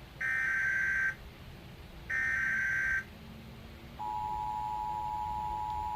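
Emergency Alert System header: two bursts of buzzy warbling SAME data tones, each just under a second, a second apart, then about four seconds in the steady two-tone EAS attention signal starts and holds, announcing a flash flood warning.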